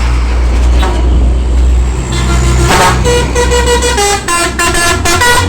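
A container truck's telolet horn, a multi-tone musical horn, playing a quick tune of changing notes from about two seconds in, over the truck's engine running.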